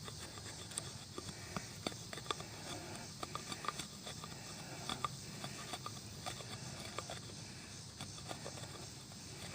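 Hatchet blade shaving curls off a piece of wood: a series of faint, irregular scrapes and clicks as the edge bites and slides along the grain.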